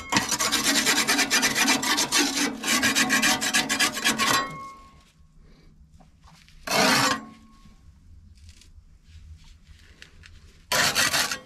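A scraper rasping in rapid strokes against the inside of a solid-fuel boiler, scraping off ash and soot deposits, for about four and a half seconds. Two more short scrapes follow, one about seven seconds in and one near the end.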